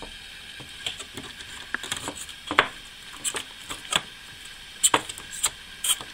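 Plastic cover of a Logitech Z506 subwoofer's amplifier panel being worked loose by hand: scattered sharp plastic clicks and snaps as it comes free, the loudest about two and a half seconds in.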